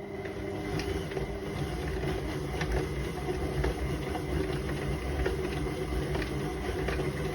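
Electric stand mixer running steadily, beating shortbread dough, with faint irregular ticks over its motor hum.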